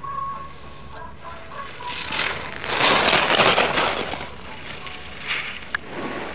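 Alpine skis carving and scraping across packed snow as a racer turns through the gates. The scrape swells loudest in the middle and surges briefly again later, and there is a single sharp click near the end.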